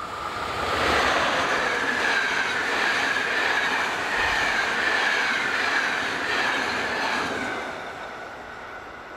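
Passenger train of historic coaches hauled by an FS E656 electric locomotive passing close at speed: a rush of wheel and rail noise with a steady high ringing over it, building within the first second, holding for about six seconds as the coaches go by, then fading as the train moves away.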